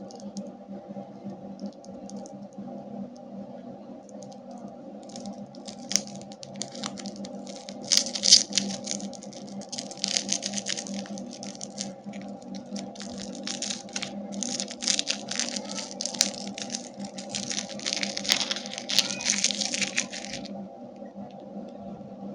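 Crinkling and tearing of plastic candy wrappers being opened, in repeated bursts from about five seconds in until shortly before the end, over a steady low hum.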